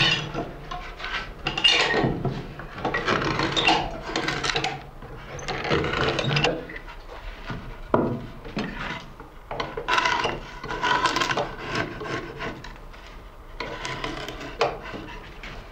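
A clog-maker's hinged stump knife pares a poplar-wood clog in repeated rough, scraping cuts, one stroke every second or two. The strokes trim the clog's upper edges and shape its toe and heel. There is a single sharp click about eight seconds in.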